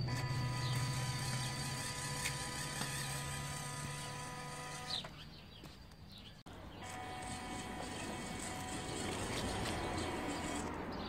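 Small electric drive motor and metal gears of a WPL B-16 RC 6x6 truck whining steadily as it rolls over paving stones. The whine fades about five seconds in, then comes back at a different pitch after a cut.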